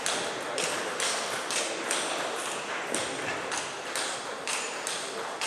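Table tennis balls clicking off bats and tables in a sports hall, uneven sharp knocks about two a second, each with a short hall echo.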